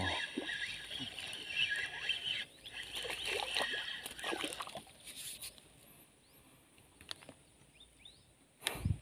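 Rustling and handling noise close to the microphone over a steady high-pitched outdoor chorus that fades out about halfway through, then one sudden loud thump near the end.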